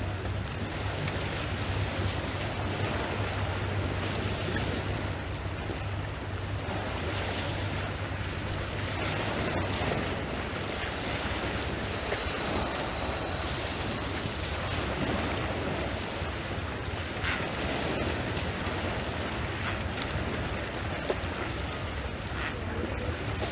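Small waves washing onto a pebble-and-ice shoreline, with steady wind rumbling on the microphone.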